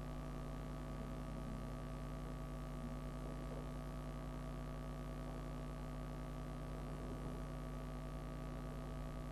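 Steady electrical hum made of several constant tones over a faint hiss: room and recording-system hum with no other sound standing out.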